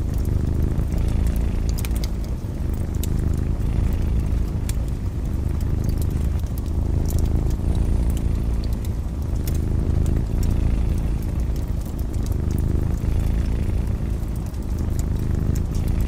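Domestic cat purring in a steady low rumble that swells and eases every few seconds, with a fireplace crackling and popping in sharp scattered clicks.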